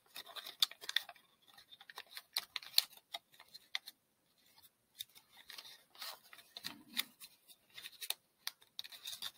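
Origami paper crackling and rustling as it is folded and pressed by hand, in scattered crisp crinkles and clicks.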